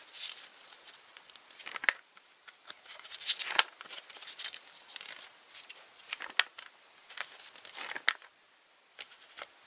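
Paper book pages rustling and crinkling as they are handled and turned, with irregular crackles and a few sharp clicks.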